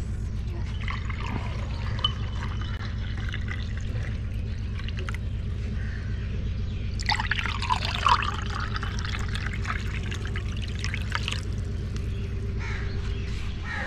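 Lemon juice being poured from a glass jug into drinking glasses, the splashing loudest from about halfway through until a few seconds before the end. A steady low rumble runs underneath.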